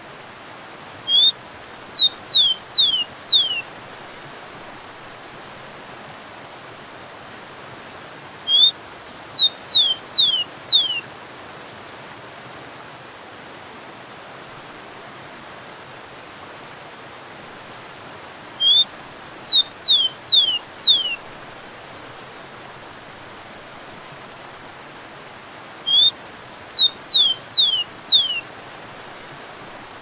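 Rufous-collared sparrow (tico-tico) singing four song phrases, each about two and a half seconds of high whistles sliding downward, over the steady rush of a waterfall.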